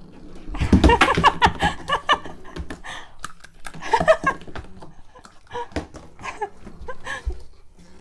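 A person laughing in bursts: a long run of laughter from about half a second in, more around four seconds, and short bursts again near the end. Scattered knocks are heard as well.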